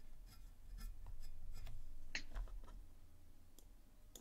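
Faint, scattered light clicks and taps at a desk, a dozen or so at irregular intervals, over a steady low electrical hum.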